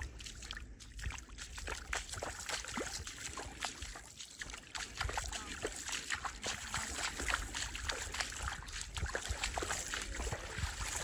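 A person wading through shallow water, feet splashing and sloshing irregularly with each step, over a low steady rumble of wind on the microphone.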